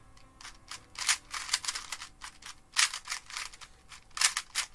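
GAN 251M Leap magnetic 2x2 speedcube being turned fast by hand: an irregular run of sharp plastic clicks and clacks, several a second, as the layers turn and snap into place on their magnets.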